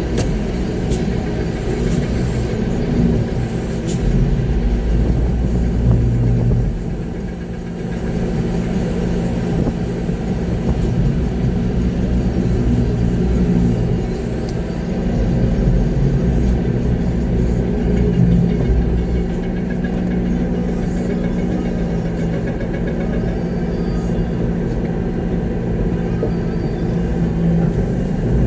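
Concrete mixer truck's diesel engine running steadily during a pour, heard from inside the cab, its note swelling and easing a little at times.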